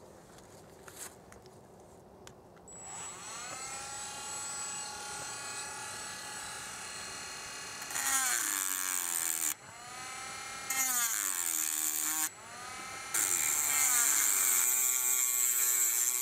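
A cordless rotary tool switches on about three seconds in and spins up to a steady high whine. From about halfway its cut-off disc grinds into a glass jar in three bouts, each louder with a gritty hiss. The motor pitch drops under the load and climbs again in the gaps between cuts.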